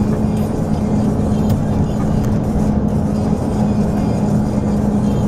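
Truck's diesel engine and road noise heard inside the cab while driving at a steady pace, with a constant low drone.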